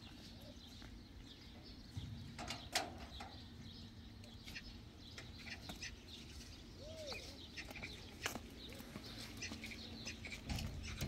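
Faint farmyard sounds: scattered small knocks and rustles, with one short call that rises and falls about seven seconds in, likely from a bird or fowl.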